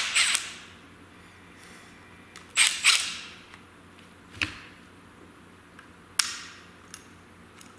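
Sharp metallic clinks of hand tools on a differential carrier: two quick taps about two and a half seconds in, a fainter one a second and a half later, and another sharp tap about six seconds in.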